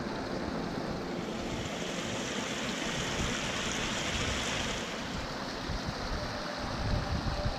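Mountain stream rushing and splashing over rocks, a steady watery hiss that swells for a few seconds in the middle as the stream passes close below and then eases off.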